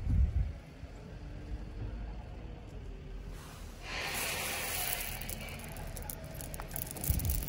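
Wind buffeting the microphone at the start, then from about four seconds in a hand digging into loose 8–12 mm Rosso Verona marble chippings and scooping up a handful, the stones rustling and clicking against each other.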